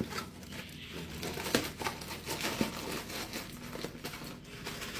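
A bag crinkling and rustling as it is handled, with irregular sharp crackles.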